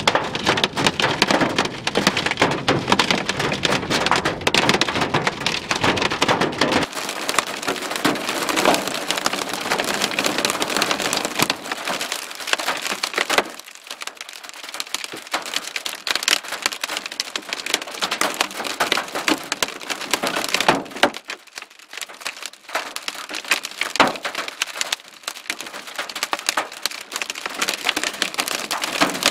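Hail and heavy rain pelting a vehicle's roof and glass: a dense, steady patter with frequent sharp knocks from larger hailstones striking.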